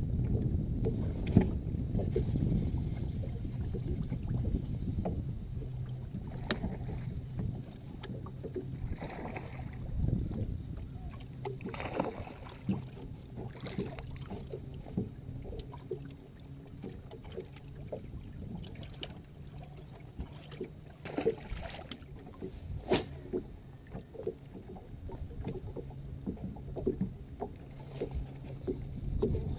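Water lapping against a bass boat's hull with some wind, a faint steady hum from the bow-mounted electric trolling motor, and a few short splashes as a hooked bass thrashes at the surface beside the boat.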